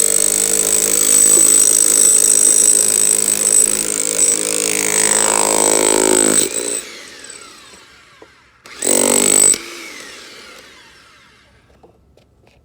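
Jackhammer hammering in a rapid, steady rattle for about six seconds, stopping, then running again in one short burst of about a second. It is breaking loose material that a sledgehammer would not shift.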